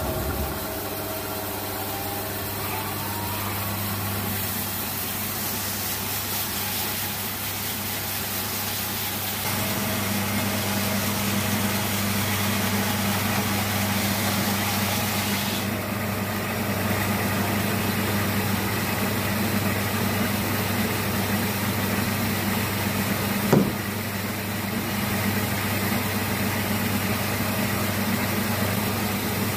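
Large floor-standing bandsaw running with a steady low motor hum while its blade cuts through a log block. There is a rising whine in the first few seconds, and it gets a little louder about ten seconds in. A single sharp knock comes near the end.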